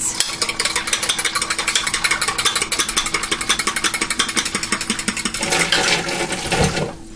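Eggs and water being beaten in a measuring cup: a fast, steady clatter of a utensil against the cup, many strokes a second, stopping about five seconds in.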